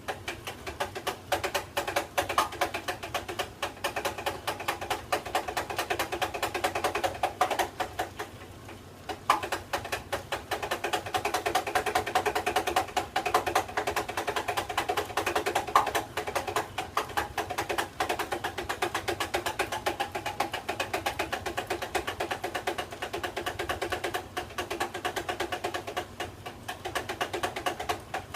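Metal spoon stirring tea in a pitcher: a fast, continuous clinking of the spoon against the sides, with the container ringing under the clinks.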